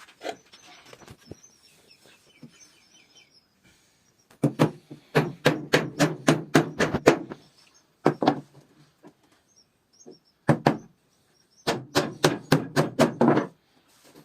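Hammer blows on wood: a quick run of about ten strikes, two single blows, then another run of about seven.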